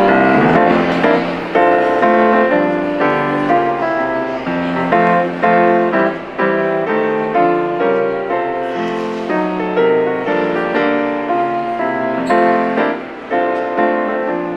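Piano music: a continuous flowing melody over chords, each note struck and then fading.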